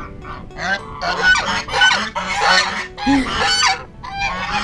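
Domestic geese honking loudly and repeatedly, several birds calling over one another, with a brief lull about four seconds in before the honking starts again.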